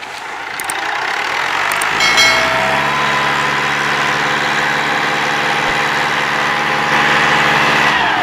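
Fiat 640 tractor's four-cylinder diesel engine working hard under the load of a heavily loaded sugarcane trolley. It swells over the first two seconds, then holds a steady, loud note at high revs.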